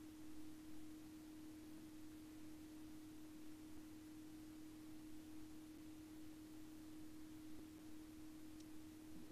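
Near silence: a steady low hum over faint hiss.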